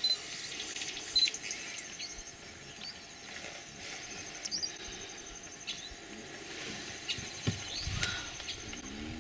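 African wild dogs giving short, high, squeaky twittering calls while feeding at a kill, over a steady high insect trill. A few low thumps come near the end.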